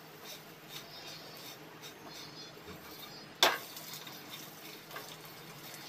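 Egg-in-bread toast frying in butter in a nonstick frying pan, a faint sizzle with small crackles, and light taps and scrapes of a silicone spatula. One sharp knock about three and a half seconds in as the slice is turned over in the pan.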